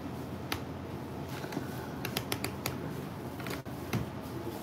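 Several light, sharp clicks and ticks, with a quick run of them about two seconds in, over a low steady hum.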